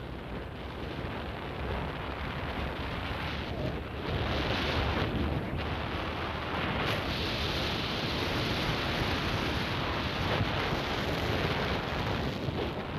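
Wind rushing over the microphone of a motorcycle on the move, a steady rush of noise that gets louder about four seconds in.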